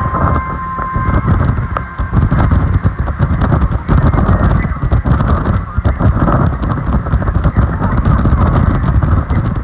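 Loud wind buffeting on the microphone of a speedboat running fast over choppy water, with the boat's engine and hull spray mixed in as an uneven low rumble with crackles.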